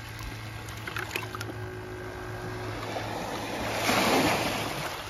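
Small waves lapping on a sandy shore with wind buffeting the microphone; the noise swells about four seconds in and then falls back.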